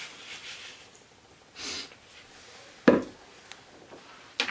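Sugar being folded by hand into a whipped scrub base in a mixing bowl: soft scraping strokes, a short rush, then a sharp knock of the utensil against the bowl about three seconds in, and a lighter knock near the end.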